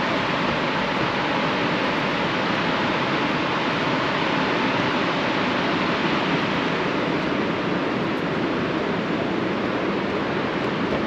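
Steady, loud roar of a large waterfall heard from close by at the top of the falls, a continuous rush of falling water.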